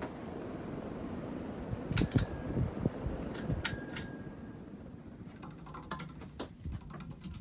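42-inch 1987 Casablanca Lady Delta ceiling fan running, a steady whir, with a few sharp clicks scattered through it.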